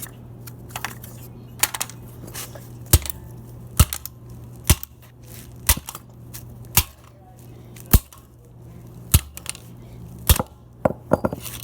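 A plastic Nerf gun being struck hard over and over, about ten sharp blows roughly a second apart, as its body starts to crack and break.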